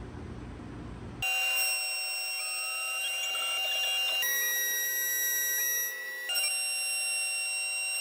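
Small CNC milling machine running with a steady high whine made of several tones together. The whine starts about a second in and shifts pitch about four seconds in and again about six seconds in.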